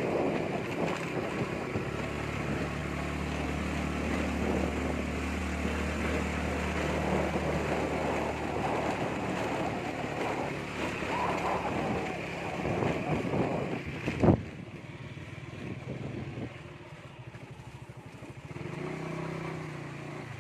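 Motorbike engine running while riding, with wind noise rushing over the microphone. A single sharp knock about fourteen seconds in, after which the sound turns quieter until the engine tone rises again near the end.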